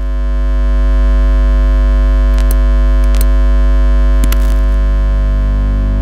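Deep, steady high-voltage electrical hum with many overtones, swelling in over the first second. A few brief, sharp electric crackles come between about two and four and a half seconds in.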